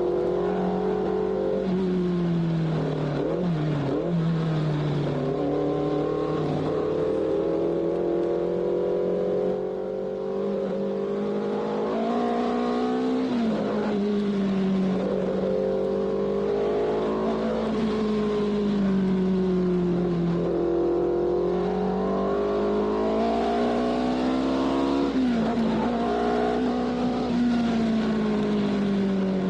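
Formula 1 race car engine running at high revs. Its pitch swings up and down over many seconds, climbing sharply about 13 and 25 seconds in and sinking slowly in between.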